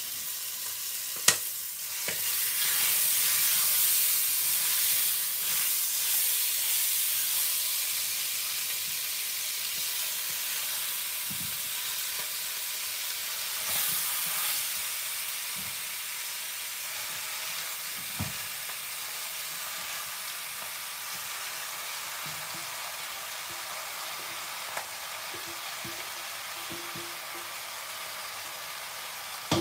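Curry-seasoned chicken pieces sizzling in a little hot oil in a stainless steel pot, a steady hiss that swells for several seconds from about two seconds in, then settles. A sharp click just over a second in, and a few light knocks later on.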